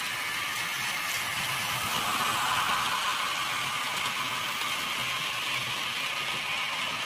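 HO scale model train running along the track: steady whir and rattle of the wheels and motor, swelling a little as the wagons pass closest about two to three seconds in.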